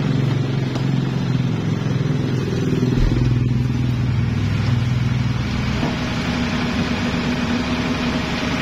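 Garbage compactor truck's engine running steadily at low revs, its note shifting up a little about six seconds in.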